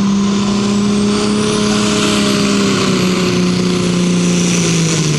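Tractor-pulling tractor's engine running under load as it hauls a weight-transfer sled down the track. Its steady pitch drops a little about three seconds in and again near the end.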